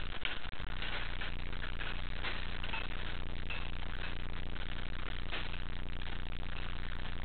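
Steady background din of a busy indoor play hall, with a constant low hum and scattered faint clicks and knocks.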